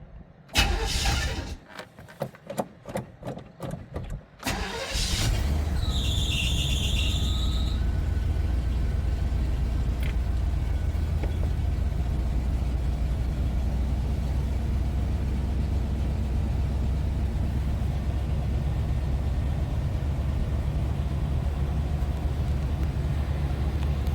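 1979 van's engine being cranked by the starter, about three strokes a second for some four seconds, then catching and settling into a steady cold idle. A brief high-pitched tone sounds a second or two after it catches.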